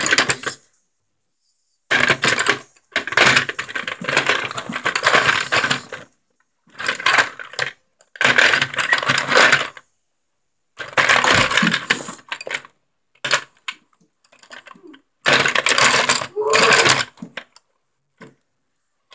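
Repeated bursts of close-up clattering and rubbing from paintbrushes and painting materials being handled on a tabletop near the microphone, with short gaps between them.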